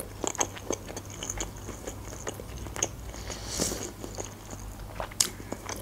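Close-miked chewing of a mouthful of food with the mouth closed: soft, wet mouth clicks several times a second, with a louder click near the end.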